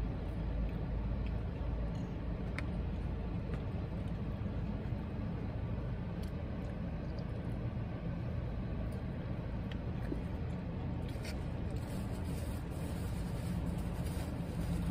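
Steady low rumble of a car running, heard inside the cabin, with a few faint clicks as food is handled and eaten.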